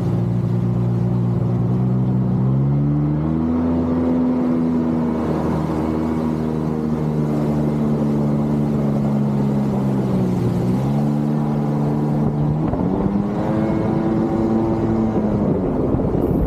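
Jet ski engine running under way, its pitch climbing a few seconds in, dipping briefly past the middle, then climbing again as the throttle changes.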